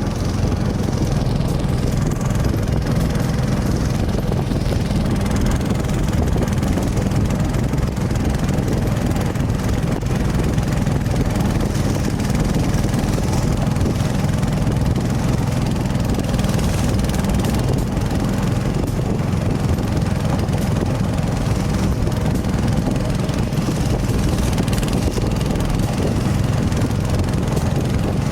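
Longtail outboard engine of a small ketinting boat running steadily under way, a constant low engine sound with no change in pace.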